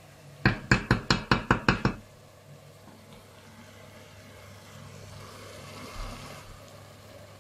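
Wooden spoon knocking on the rim of a stainless steel cooking pot, about ten quick knocks in a second and a half, followed by a faint, steady low hum.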